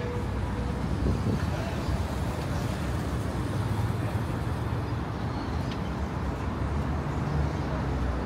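City street traffic: motor vehicles running and passing, a steady low engine rumble.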